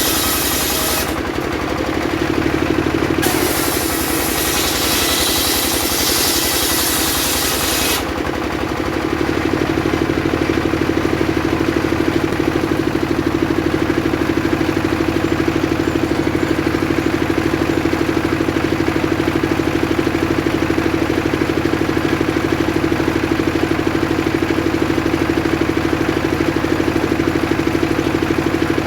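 Engine-driven circular saw ripping through sengon wood, a harsh cutting hiss over the engine, with a short let-up about a second in. About eight seconds in the blade comes out of the wood and the saw's engine runs on steadily without load.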